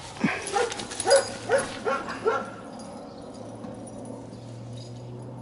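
A dog giving about five short, pitched yips or whines in quick succession, eager to play fetch. A faint steady low hum runs underneath.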